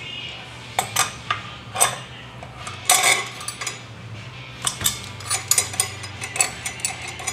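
Sharp, irregular metallic clicks and clinks of hand tools against a steel clutch-spring bench tool as its bracket and threaded rod are worked loose from an ATV secondary clutch, coming faster in the second half. A faint steady low hum runs underneath.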